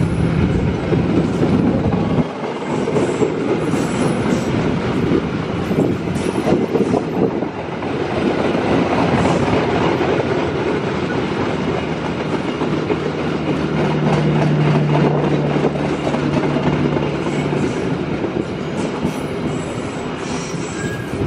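Stainless-steel new-generation passenger coaches of an INKA test train rolling past on the track, their wheels clicking over the rail joints. A steady low hum comes in for a few seconds midway.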